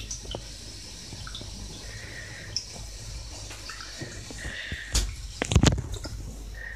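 Shallow bathwater dripping and splashing softly as a cat plays in it, with a short cluster of louder splashes and knocks about five seconds in.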